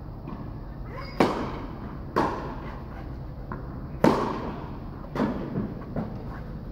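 Tennis ball struck back and forth by racquets in a rally: sharp pops, the loudest about one, two and four seconds in, with fainter hits later, each ringing briefly in the echo of an indoor court hall.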